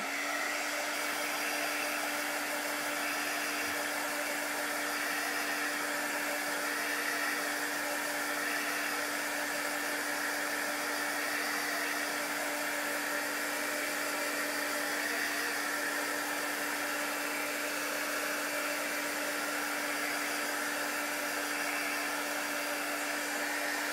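Handheld craft heat gun blowing steadily, with a constant hum, as it dries freshly applied chalk paste; it cuts off at the very end.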